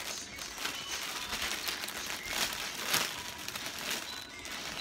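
Crinkling rustle of a shirt's plastic wrapping being handled, coming and going in irregular spells.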